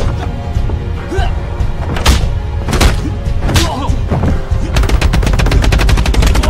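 Film fight-scene soundtrack: a dramatic score with heavy low drums, punctuated by single punch and kick impact hits and a few shouts. From about five seconds in, a rapid barrage of punch impacts comes several per second, a chain of blows rained on a fighter on the floor.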